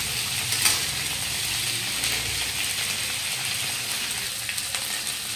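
Cauliflower florets frying in hot mustard oil in a kadhai, a steady crackling sizzle. A steel spatula clicks and scrapes on the pan now and then, most sharply just under a second in.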